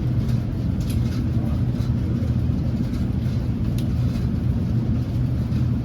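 Steady low rumble with no speech, with two faint clicks, about a second in and again near the four-second mark.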